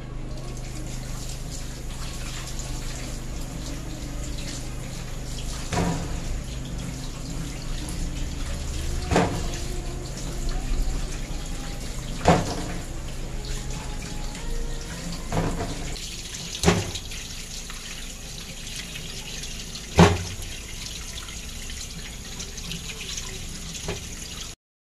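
Water running from a kitchen tap into a stainless steel sink as raw fish pieces are rinsed by hand in a steel bowl, with about six sharp knocks against the bowls along the way. The sound cuts off suddenly near the end.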